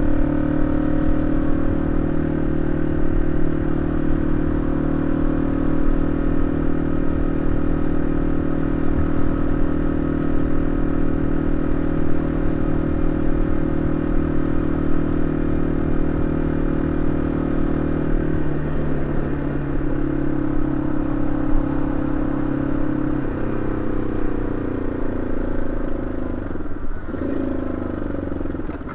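Yamaha XT225 Serow's air-cooled single-cylinder four-stroke engine running at a steady cruise, then stepping down in pitch about two-thirds of the way through and again a few seconds later, its note sliding lower near the end as the bike slows.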